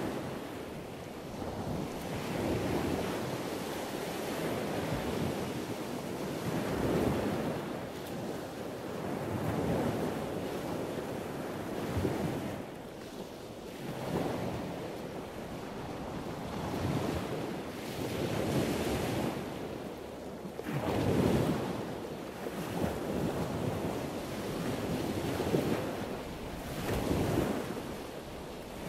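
Wind buffeting the microphone outdoors, a rushing noise that swells and fades in gusts every second or two, with no engine or horn tones.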